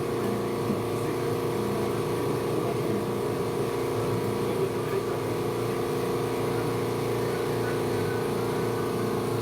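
Hot air gun running steadily with a motor-and-fan hum, switched off with a click at the very end. The part it was heating is left to cool.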